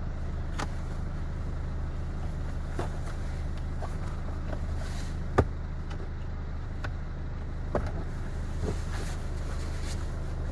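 Plastic trim clicking and knocking as a car's lower footwell panel is pulled free, with one sharp snap about halfway through, over a steady low hum.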